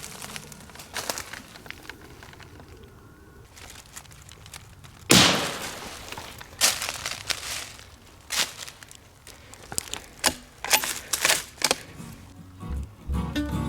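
A single rimfire rifle shot about five seconds in, fired to finish off a wounded squirrel, among scattered rustling crunches. Acoustic guitar music comes in near the end.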